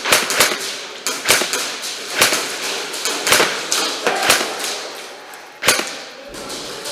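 Airsoft gun firing a string of single shots: about a dozen sharp cracks, often in quick pairs, with a last shot after a short pause near the end.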